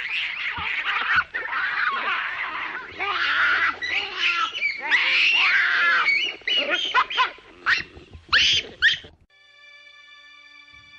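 Baboons giving a rapid run of high-pitched screaming calls, ending in a few short, sharp cries, then stopping about nine seconds in. Faint music follows.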